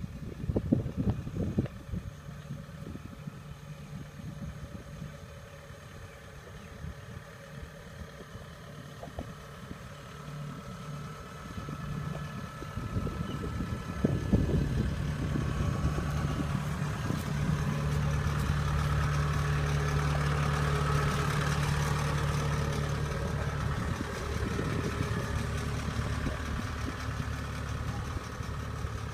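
Tracked combine harvester's diesel engine running steadily, growing louder from about halfway through as the machine comes close. There are a few sharp knocks near the start.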